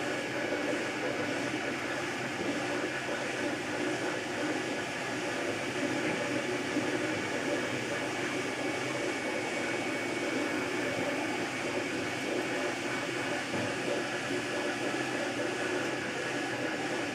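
MakerBot Replicator 2 3D printer running: its stepper motors buzz and whine as the extruder head traces the layer, over a steady fan hum.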